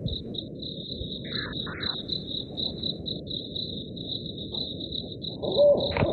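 Field recording of crickets chirping in a rapid, even train, over a low background hum of other night sounds; an owl begins hooting near the end.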